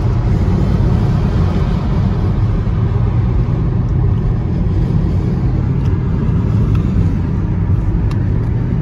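Steady low rumble of a car driving at road speed: engine and tyre noise, even and unchanging throughout.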